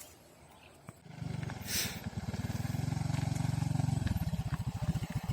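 Small motorcycle engine starting about a second in and running, its note dropping to a slower, pulsing beat about four seconds in.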